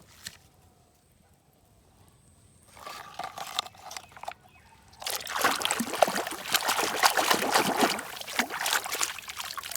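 Water splashing and trickling as a muddy toy vehicle is washed, fairly quiet at first and much louder and busier from about halfway in.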